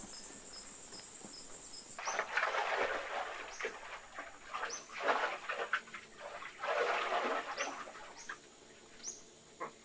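Night insects chirping, a steady high trill with a regular chirp about four times a second. About two seconds in, several loud bursts of rustling noise set in, with short rising squeaks.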